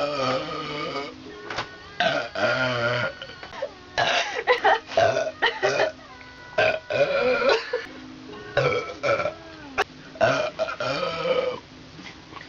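A person belching loudly over and over: about six long, pitched burps, each around a second long, with short gaps between them.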